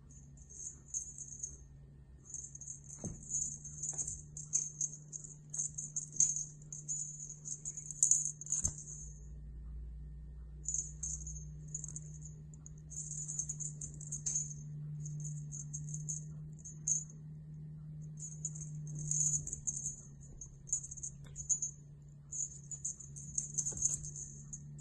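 A small jingling toy, like a bell toy, jingles in repeated short spells with brief gaps, over a steady low hum, with a few light knocks from the kitten's play on the cat tree.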